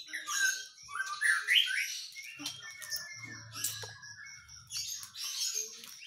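White-rumped shama (Medan type) singing a run of short, varied phrases with rising and falling whistles, broken by brief pauses. This is a bird whose song, by the seller's account, has not yet fully come in.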